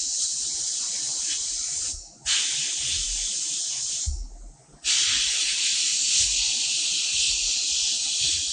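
Sandblasting gun in a blast cabinet spraying abrasive onto a small metal part with a steady high hiss. The blast stops briefly twice, about two seconds in and again for under a second around four seconds in.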